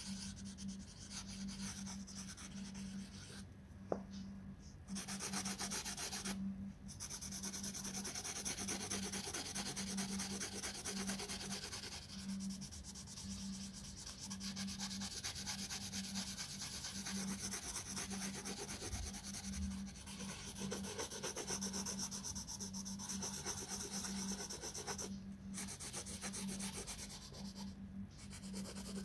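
Green wax crayon, then a coloured pencil, scribbling back and forth on colouring-book paper to shade in an area: a steady dry scratching rub. Near the start there is a brief lull with a single sharp tap about four seconds in.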